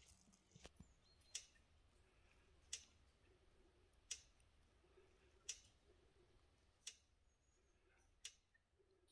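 Electric fence energizer ticking faintly: six sharp, evenly spaced clicks about every second and a half.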